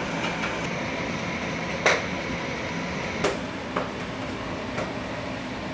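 Steady kitchen hiss with a faint hum while ground meat fries in a pan on a gas range, broken by about four short, sharp clacks like a utensil against cookware.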